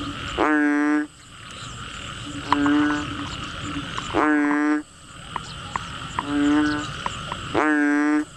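A frog calling loudly: a two-note call, a short note and then a longer sweeping one, repeated three times about every three and a half seconds, over a steady background of insects buzzing.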